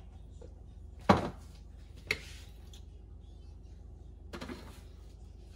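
Kitchen knocks: a loud thud about a second in, a sharper, shorter knock a second later, and a softer small clatter near the end, like things handled and set down on a counter.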